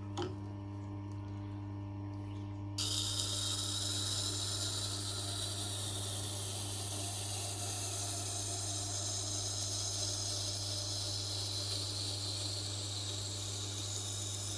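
Tormek sharpening machine's motor humming, then about three seconds in the knife's edge goes onto the turning 320-grit wheel and a steady high grinding hiss runs on: the sharpening passes that refine the edge after the burr has been raised.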